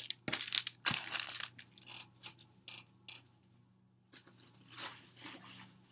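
Paper and plastic album packaging being handled: rustling and crinkling with a few sharp taps in the first second and a half, quieter for a moment, then more rustling near the end.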